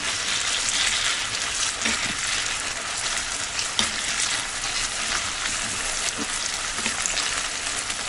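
Lamb and pork mince sizzling steadily in a frying pan in its own rendered fat, no oil added, while a wooden spatula stirs it, with a few faint knocks of the spatula on the pan.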